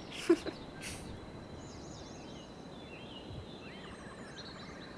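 Forest ambience of birds chirping and warbling over a faint steady high whine and soft hiss, with a short sharp sound just after the start.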